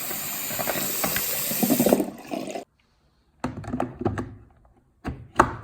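Water running steadily, then stopping abruptly after about two and a half seconds; a short silence follows, then a few knocks and clattering sounds.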